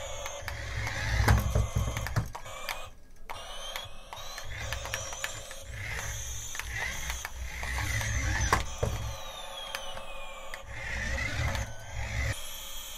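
Remote-control toy airliner driving and turning on a cloth-covered table: its small electric motor and plastic gears whir in stop-start bursts, with clicks and gliding electronic tones from the toy.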